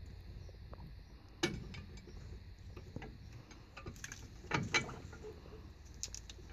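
Scattered metallic clicks and knocks of clutch parts being handled and fitted onto the clutch pack of a New Holland TR96 combine's drive pulley, loudest about one and a half seconds in and a close pair past the middle, over a low steady hum.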